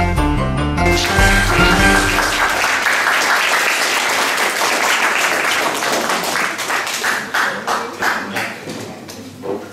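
The closing notes of the dance music stop about two seconds in as the audience breaks into applause. The clapping carries on, fading toward the end.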